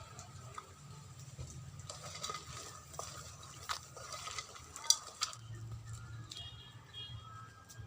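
A utensil stirring, knocking and scraping in a cooking pot, with a string of sharp clicks in the middle, the loudest near the end of the string.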